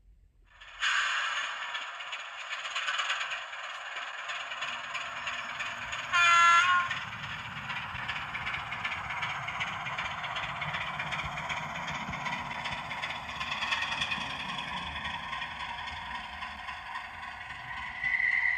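OO gauge model diesel locomotive's sound decoder playing a diesel engine running sound through its small speaker as the model moves along the track. The sound starts about a second in, and a short horn blast at about six seconds is the loudest moment.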